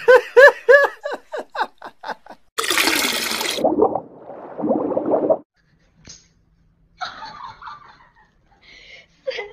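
A dog gives a quick run of short, high barks that grow fainter over the first two seconds. About half a second later comes a rushing, watery whoosh sound effect lasting about three seconds.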